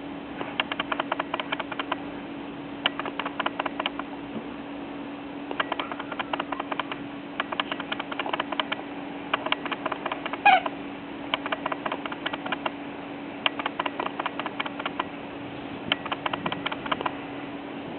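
Eight-week-old puppies: repeated clusters of rapid clicking and one short, high yelp about ten seconds in, over a steady low hum.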